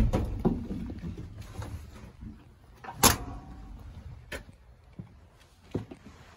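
Handling and movement noise as someone gets out of a 1969 Ford F100's cab, with a sharp clunk of the cab door about three seconds in and a lighter knock a second later.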